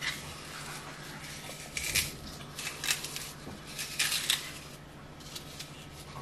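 A small knife paring a raw apple held in the hand: a handful of short, crisp cutting and scraping sounds, a second or so apart, over a faint steady low hum.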